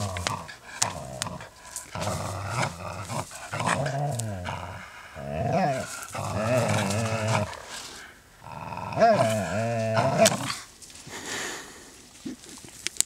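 A dog growling while tugging at and tearing a plush toy crocodile, in several stretches of a second or two with short gaps between.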